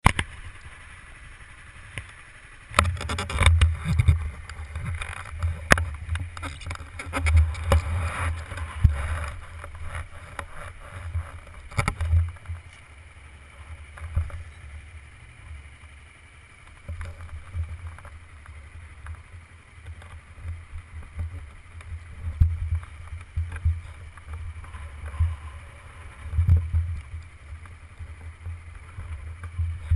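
Wind buffeting the microphone of a camera on a moving motorcycle: an uneven, gusting low rumble with rough bursts of noise, heaviest from about three to twelve seconds in.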